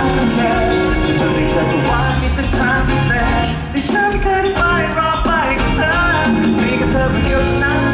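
A male singer singing a song into a handheld microphone over loud amplified accompaniment.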